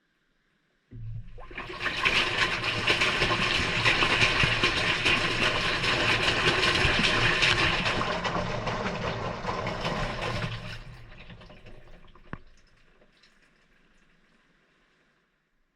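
Water rushing into the drum of a Maytag front-loading washing machine as it fills during a delicate cycle, with a low hum under the spray. It starts suddenly about a second in, eases off after about ten seconds with one sharp click, and fades away.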